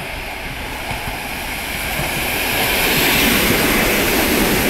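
ET2M electric train running into the platform and passing close by, its wheel and running noise growing louder over the first three seconds and then holding steady as the cars draw alongside.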